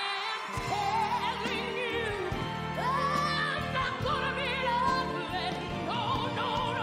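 Dance routine music: a voice singing in an operatic style with strong vibrato over instrumental backing, the low accompaniment coming in about half a second in.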